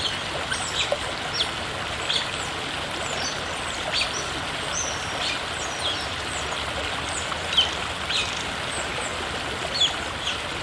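Smooth-coated otters giving short, high-pitched chirps again and again, a family calling in alarm while they mob a spitting cobra, over a steady rush of water.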